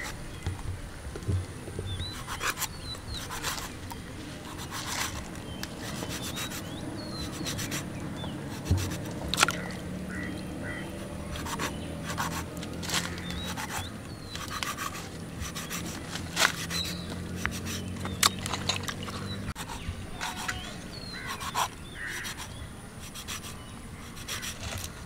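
Knife scoring a whole tilapia: irregular scrapes and taps of the blade cutting into the fish. Small birds chirp throughout, and a low steady hum runs through the middle and stops suddenly about two-thirds in.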